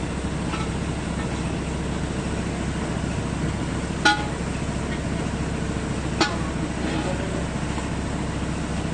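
Excavator engine running steadily, with two sharp ringing metallic clanks about two seconds apart, the first the louder, as of steel struck during track-link work.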